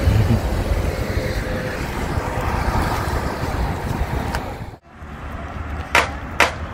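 Road traffic noise with wind buffeting the microphone. The sound drops out briefly about two-thirds through, then two sharp knocks follow.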